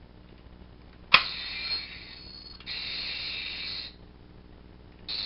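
Legacy Power Morpher toy: a sharp click about a second in as it is worked, followed by its electronic sound effect, a high buzz. The buzz sounds twice, each about a second long, and starts again near the end.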